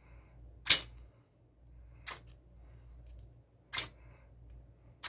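Small ferrocerium rod scraped with a ceramic striker to throw sparks into dryer lint: three brief, bright rasping strikes, the first the loudest, over a second apart.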